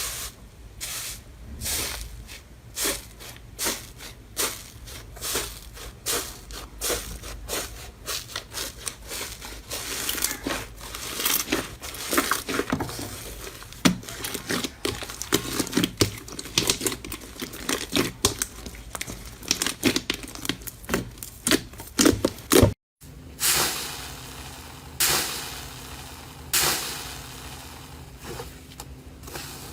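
Slime being squeezed and worked by hand, giving a dense run of irregular crackling pops and squishes. A short break about three-quarters of the way through leads into another handling clip with fewer, louder pops.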